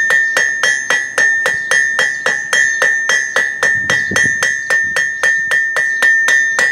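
Blacksmith's hammer striking hot steel bar stock on an anvil in a steady rhythm of about three blows a second. The anvil rings on between blows. The bar is being rolled and hammered from square to round.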